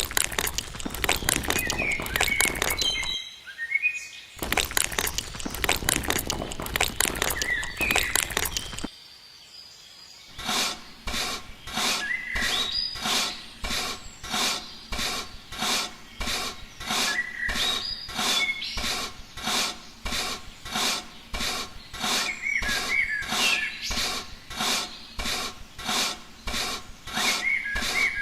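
Scraping and rubbing with some hard tool or material. First come two long stretches of dense scraping separated by a short pause, then even rasping strokes at about two a second. Birds chirp in the background.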